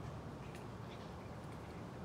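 Steady low background rumble with a few faint, scattered ticks.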